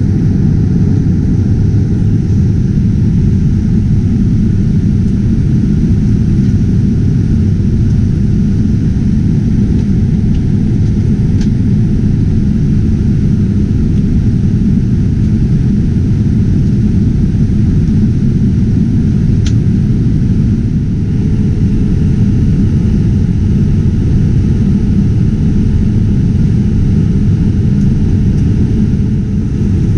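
Steady, loud low rumble of a Boeing 787-9 airliner heard from inside the cabin: jet engine and airflow noise.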